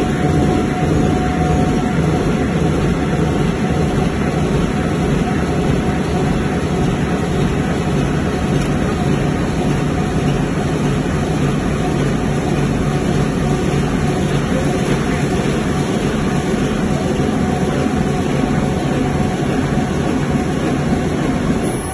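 Steady machinery noise of a veneer reeling machine winding a sheet of dried veneer onto a roll.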